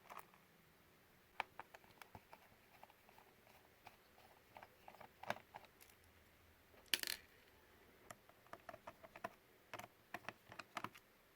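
Faint, scattered small clicks and taps of a Phillips screwdriver working screws out of a laptop's plastic bottom case, with a louder short clatter about seven seconds in.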